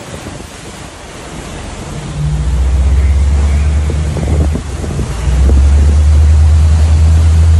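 Wind buffeting the microphone over churning sea water rushing along a ship's hull. A loud low rumble comes in about two seconds in and drops out briefly near the middle.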